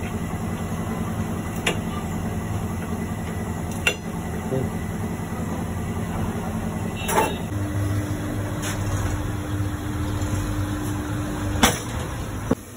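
Tyre-shop machinery humming steadily, with a second, higher hum setting in a little past halfway and cutting off about a second before the end. Several sharp metallic clicks and knocks come from the tools at the wheel, the loudest near the end.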